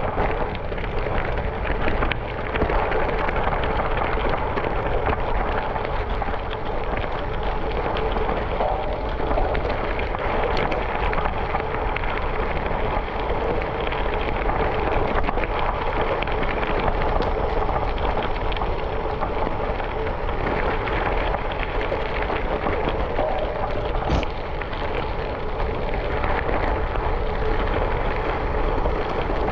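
Tyres rolling steadily over a gravel road, a continuous dense gritty noise with a low rumble and no breaks.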